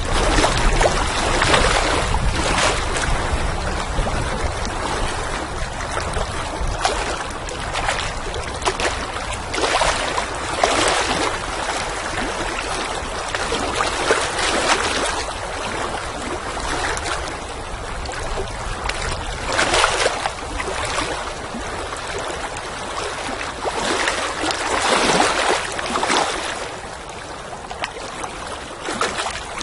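Water lapping and splashing in irregular washes every second or two, over steady wind rumble.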